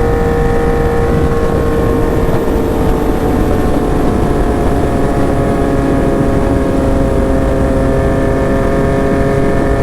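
Yamaha MT-09 motorcycle's three-cylinder engine running steadily on the move, over a constant rushing noise. The engine's pitch eases slightly a few seconds in, then holds.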